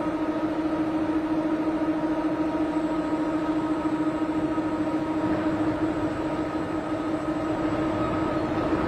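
Steady mechanical hum of heavy forge-shop machinery: one strong held tone with fainter higher tones above it over a rumbling haze, unchanging throughout.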